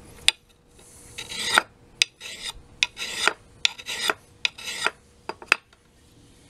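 Oiled sharpening stone rubbing along an axe's edge in about five short rasping strokes, with a few sharp clicks between them: honing out the last of the wire edge on the axe's softer steel.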